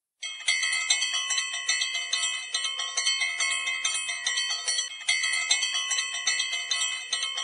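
A quick run of bright, ringing bell chimes, several notes a second, played as a short jingle. The figure starts over with a louder note about five seconds in.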